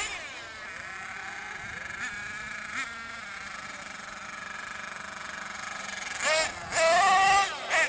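Thunder Tiger MTA4's S28 4.6 cc nitro engine falling back from a rev and then idling with a thin, steady buzz, before being revved hard in several short bursts near the end.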